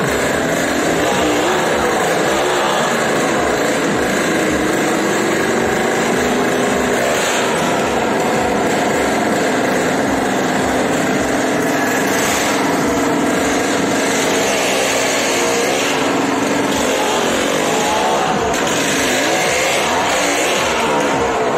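Several motorcycle engines running inside a wooden well-of-death drum, a steady loud engine noise with bursts of rising and falling revs about two seconds in and again near the end.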